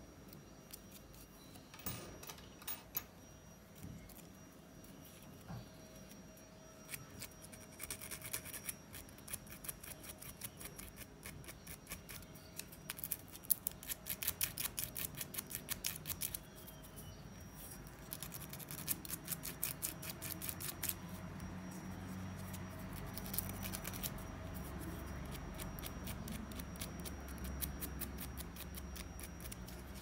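Small metal contact clip and plastic housing of a car brake pedal switch being worked by hand, giving several runs of rapid little clicks and scrapes. A low hum builds in the background in the second half.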